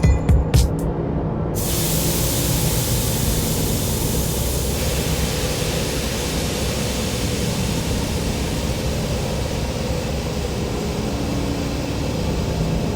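Construction machinery hums steadily, with a few sharp metallic clinks at the start; about one and a half seconds in, a loud, steady hiss sets in and continues.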